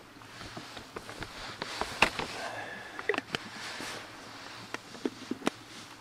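Foil freeze-dried meal pouch crinkling and rustling as it is handled and folded over, with several sharp clicks and taps, then set down on a camping table.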